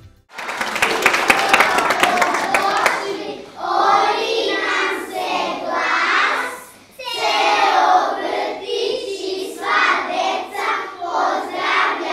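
Hand claps during the first few seconds, then a group of young children singing together in phrases with short breaks.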